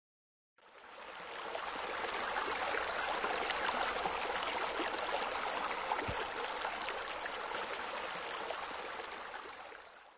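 Steady running, splashing water, fading in just after the start and fading out at the end.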